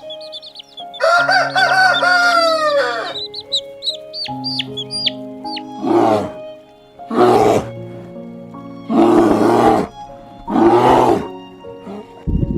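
A rooster crows once, about a second in, in one long wavering call that falls away at the end. Short high chirps follow, then four loud, harsh chicken calls, over background music.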